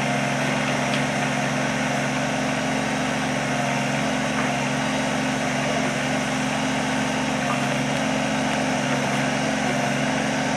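Kubota compact tractor's diesel engine running steadily at a constant speed while it drives the backhoe's hydraulics: an even hum with a noisy clatter over it.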